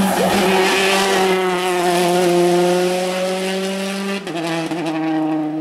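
Rally car engine held at high revs through a corner, its note rising slowly. About four seconds in, the sound cuts abruptly to another engine note with a few sharp cracks.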